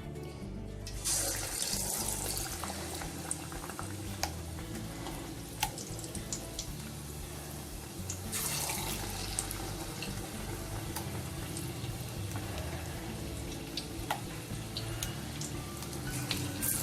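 Batter-coated raw banana slices deep-frying in hot oil in a kadai: a steady sizzle with scattered pops, swelling louder about a second in and again around eight seconds in as more battered slices go into the oil.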